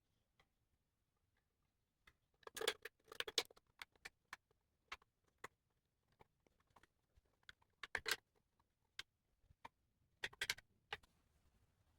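Scattered light clicks and three short bursts of clattering knocks, the sound of small hardware and a tool being handled by hand.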